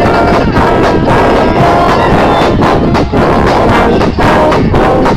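Marching brass band playing, with sousaphones, baritone horns and trombones sounding together, loud and close.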